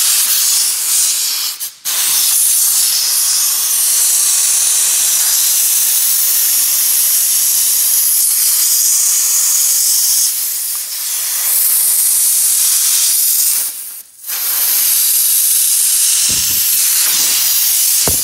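Compressed air hissing steadily from an air blow gun nozzle pushed under a motorcycle's rubber handlebar grip. The hiss stops briefly twice, about two seconds in and again about fourteen seconds in.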